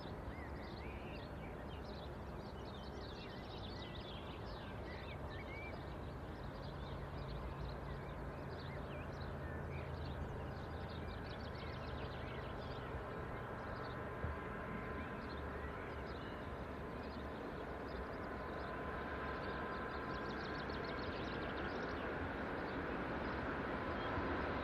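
Distant passenger train running along the line, a steady low rumble that slowly grows louder as it approaches, with small birds chirping throughout.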